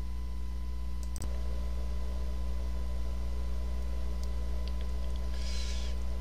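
A steady low electrical hum, with a few faint clicks about a second in and a few more near the end.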